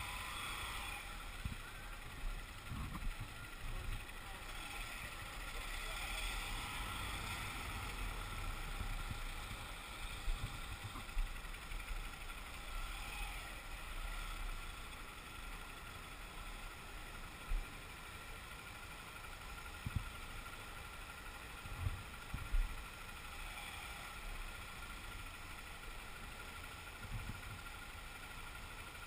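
Motorcycle moving slowly through traffic, heard from a mount on the bike: a steady engine and road hum, with occasional short low thumps.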